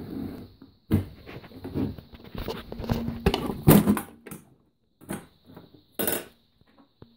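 A metal geocache box being handled and its lid unlatched and swung open: a series of sharp clanks and knocks with some rubbing, the loudest cluster a little past halfway.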